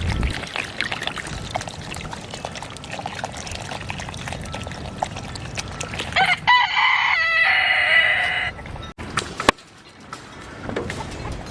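A rooster crowing once, a long call of about two and a half seconds starting about six seconds in, over a steady background of rustling and clicks.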